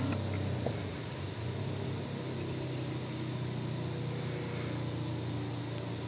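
A steady low mechanical hum, engine-like, with a sharp click at the very start and a brief high chirp about three seconds in.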